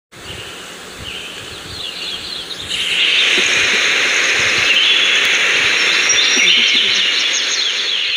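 A dense chorus of many birds chirping and calling at once, stepping up in loudness about three seconds in.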